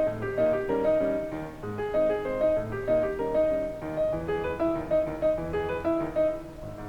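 Background music: a piano melody played over chords at a moderate pace.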